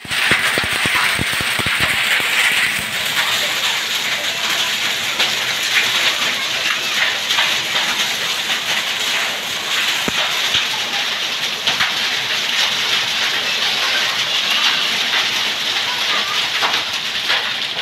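Heavy rain mixed with small hailstones pelting concrete ground: a dense, steady hiss with many sharp ticks of hailstones striking.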